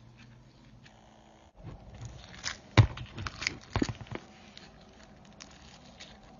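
Slime being squeezed and pressed by hand, with a cluster of sharp pops and clicks from about two to four seconds in, the loudest near the middle, then faint crackling.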